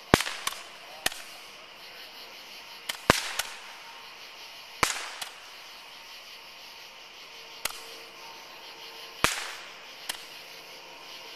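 Fireworks going off outdoors: about a dozen sharp bangs and pops at irregular spacing, several of them with a short crackling tail.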